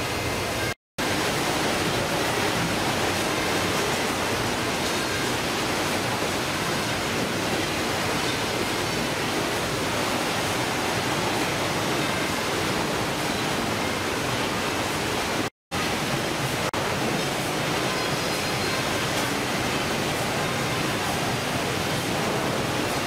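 Steady, even hissing din of fish-processing machinery and conveyors. It is broken by two brief total dropouts, about a second in and about 15 seconds in.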